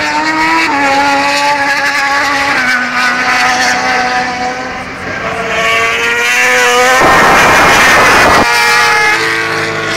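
MotoGP racing motorcycle engines at high revs: the engine note steps down in pitch twice, then climbs, and about seven seconds in a bike passes close with a loud rush lasting a second and a half.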